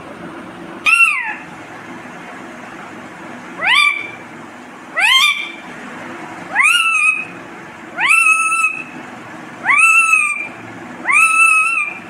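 Rose-ringed parakeet calling seven times. Each call is a clear note that rises and then levels off and holds, and the later calls are longer than the first ones.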